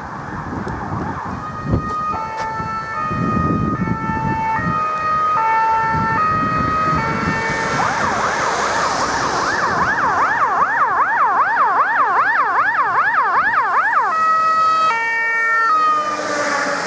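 Fire engine's electronic siren on an emergency run. It alternates between two notes, switches about 8 seconds in to a fast rising-and-falling warble of about two to three sweeps a second, and goes back to the two-note pattern near the end, with the vehicle's low rumble beneath.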